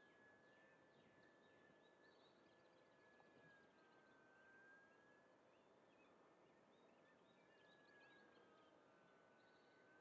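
Faint, high, steady whine of a small electric RC biplane's motor and propeller in flight, its pitch sagging and rising again twice. Faint bird chirps come and go over it.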